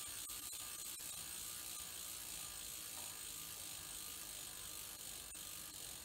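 Rear freehub of a road bike's stock wheel ticking steadily as the wheel freewheels on a work stand, the pawls clicking fast over the ratchet.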